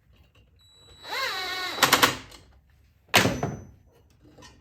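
Thin metal intake bracket being worked onto a cold air intake pipe: a brief rising-and-falling pitched squeak, a quick cluster of sharp metallic clicks, then a single loud clank just after three seconds in as it seats.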